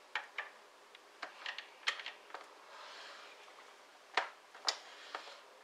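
Scattered light metallic clicks and taps of a loaded .308 Winchester cartridge being handled and set into the shell holder of a single-stage reloading press, with two sharper clicks a little after four seconds in.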